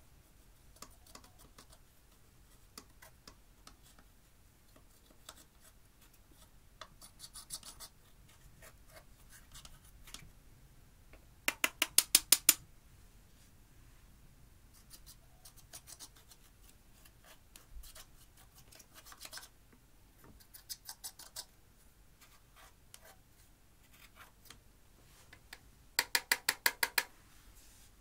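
Pressed powder eyeshadow being scraped and crumbled out of a plastic palette with a makeup brush: light scratching strokes in short runs. Twice, about halfway through and again near the end, a quick run of sharp taps, about eight in a second, stands out as the loudest sound.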